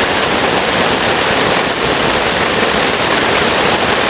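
Heavy rain pouring down in a steady, loud downpour.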